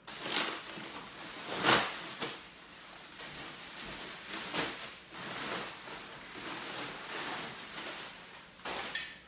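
Clear plastic wrapping crinkling and rustling as it is pulled off an aluminum radiator, with a louder crackle about two seconds in.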